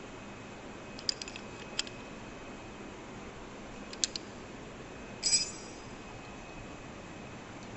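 A steel spanner clinking against a lathe's compound slide, a few short metallic knocks, with the loudest about five seconds in ringing briefly.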